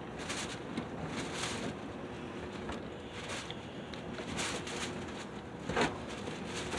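Soft mouth and handling noises from biting and eating a frozen popsicle: a few faint clicks and rustles over a low steady hum, with one sharper click near the end.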